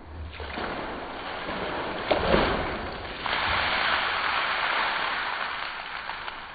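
Soapy water poured from a bucket and splashing over a car, swelling in about half a second in, with a sharp splash about two seconds in, then tapering off.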